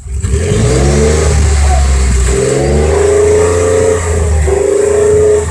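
2014 Ford F-150 Tremor's 3.5-litre EcoBoost V6 revved about three times through its stock exhaust, heard at the tailpipe, the pitch rising and falling with each rev. Not a horribly loud exhaust.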